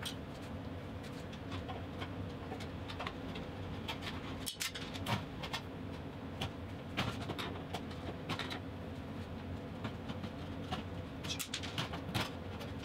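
Scattered sharp clicks and light rattles from an old fluorescent light fixture and its wiring being handled and taken apart overhead, over a steady low hum.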